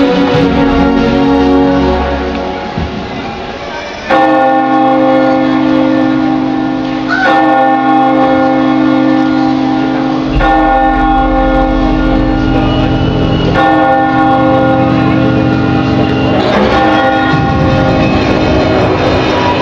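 Large alarm bell tolled by a bell rope: five strokes about three seconds apart, each ringing on into the next. Orchestral music fades out during the first few seconds.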